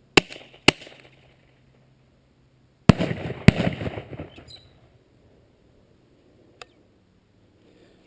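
12-gauge double-barrel coach gun firing explosive flash-powder shells: four sharp bangs in two pairs, each pair a shot followed about half a second later by the flash-powder slug bursting downrange. The second pair, about three seconds in, rings out longer. A small click follows near the end.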